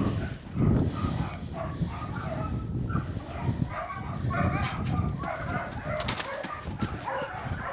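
Birds calling in short, scattered chirps, with low rumbling noise underneath and a few sharp clicks.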